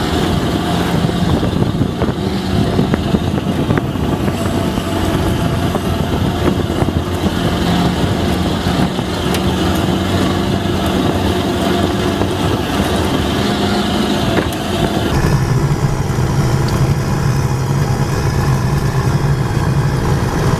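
Engine running and tyres rolling over a gravel track, heard from inside a moving off-road vehicle's cab; the engine note shifts in pitch now and then. The sound changes abruptly about three-quarters of the way through.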